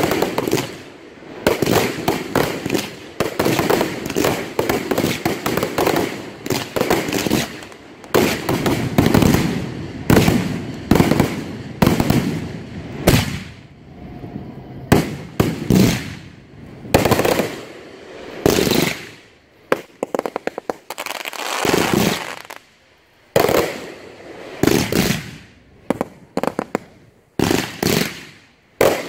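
Aerial fireworks going off in quick succession: a near-continuous run of launches and bangs, with a fast string of pops about twenty seconds in and short lulls a little after.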